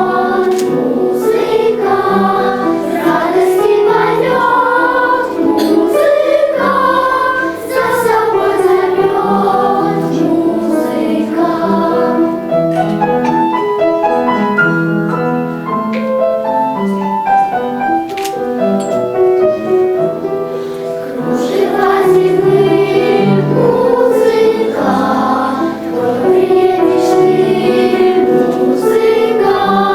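Children's choir singing a song in several voices, with accompaniment.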